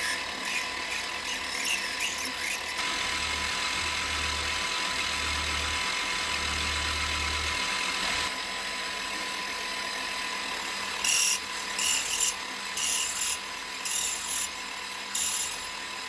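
Benchtop milling machine running with a steady motor and gear whine while a drill bit cuts through a brass plate. About five short, louder bursts of cutting noise come in the second half as the bit bites into the brass.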